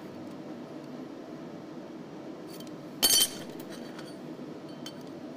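Small metal pieces handled on a stainless steel table: a few faint clicks, then one short, loud metallic clink about three seconds in, over a steady low hum.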